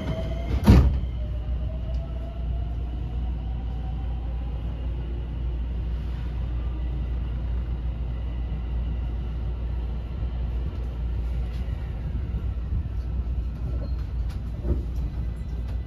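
Inside a JR West 223 series 2000-subseries motor car running: steady rumble of wheels on track, with the whine of its Hitachi IGBT VVVF inverter drive rising in pitch as the train accelerates, over the first few seconds and again near the end. A sharp knock about a second in.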